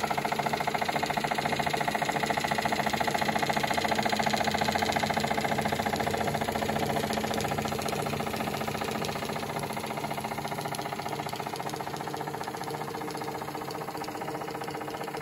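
Märklin No. 7 live steam engine from the 1930s running at speed: a rapid, steady mechanical beat from its small steam cylinder and running gear, growing gradually fainter over the second half.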